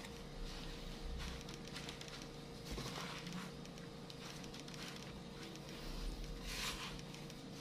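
Plastic scraper mixing and scraping moist graham cracker crumbs around a glass bowl: soft, intermittent scrapes and squishes, with one louder scrape near the end.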